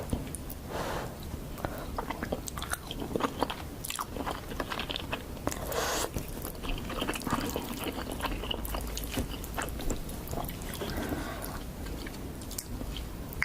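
Close-miked chewing and biting of crunchy food, with many short crackling crunches in an irregular run.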